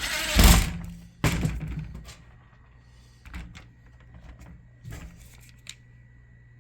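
Screws being driven back in to fasten an LG dryer's user interface board into its housing: two short bursts of noise in the first two seconds, then scattered light clicks and taps.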